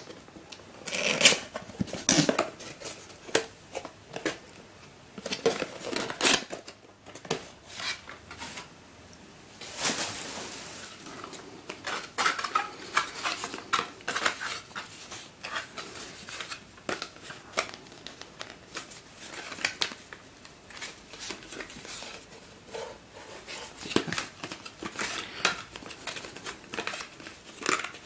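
A cardboard puzzle box being opened and its card insert slid out and handled, giving irregular rustling, scraping and sharp clicks of card and paper, with a longer sliding rustle about ten seconds in.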